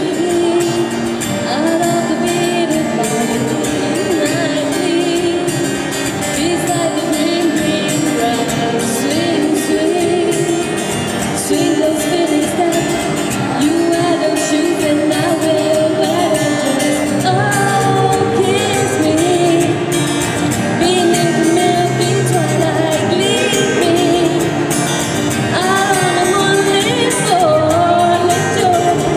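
Live performance of a song: singers on microphones singing a melody over acoustic guitar accompaniment.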